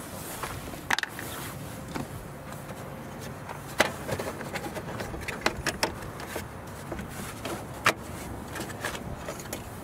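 Toyota RAV4's plastic radiator support cover being worked loose from its push-pin clips and lifted off: scattered plastic clicks and rattles, with sharp snaps about a second in, near four seconds and near eight seconds.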